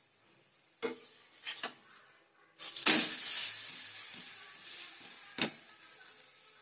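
Steel spatula clicking against a hot tawa, then, about two and a half seconds in, a sudden sizzle as an aloo paratha is flipped onto its buttered side on the griddle; the sizzle fades over the next few seconds, and one more spatula click comes near the end.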